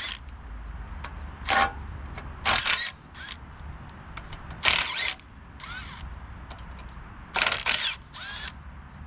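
Small Snap-on impact driver running in about six short bursts, some with a rising whine, as it works bolts loose on a tractor engine.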